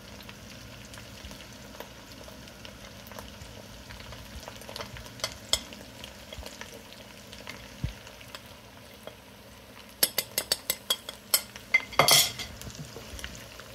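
Onions frying in oil in a steel pan, a steady gentle sizzle, as ground spices go in. About ten seconds in comes a quick run of sharp clicks from the steel spoon on the plate and pan, then a louder scrape as a wooden spatula starts stirring the spices into the oil.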